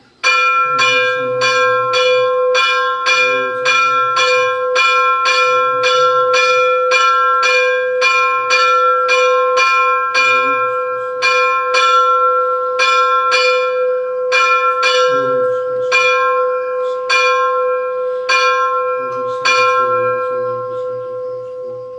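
A single metal ritual bell struck again and again in quick strokes, about two to three a second with brief pauses, its one clear tone ringing on between strikes. The striking starts suddenly and stops about twenty seconds in, leaving the bell ringing.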